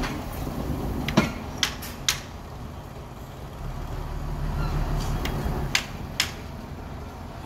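Dump truck engine running, growing louder around the middle as sand starts sliding out the back. Five sharp knocks break through it, three in the first couple of seconds and two near the end.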